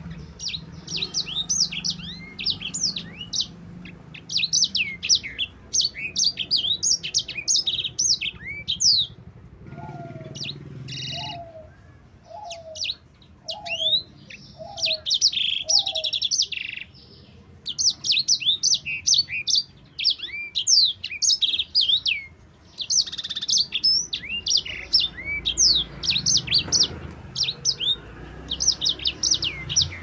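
Caged sanger (white-rumped seedeater) singing a long, rapid twittering song of high chirps and trills, with short breaks. Midway, a lower call note repeats six times, about once a second.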